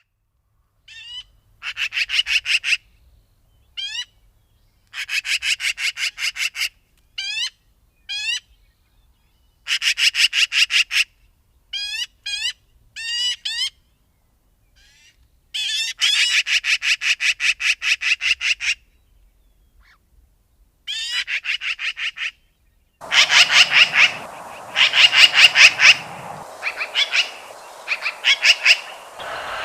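Magpie chattering: harsh rattling calls in bursts of one to three seconds, each a fast run of dry notes, with short single calls in between. Two-thirds of the way through, a noisier recording with steady background hiss takes over, the rattles continuing.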